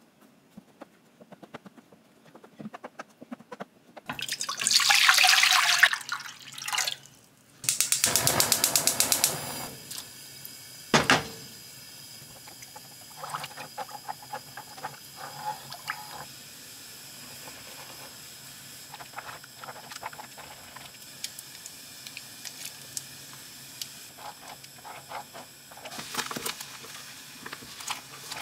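Water running or being poured in two loud rushes, about four and eight seconds in, followed by a sharp knock and then faint small clicks over a low steady hiss.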